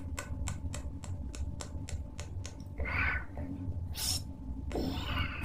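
A fast, even run of sharp clicks, about five a second, stops about two and a half seconds in. Three short hissing noises follow, over a steady low hum.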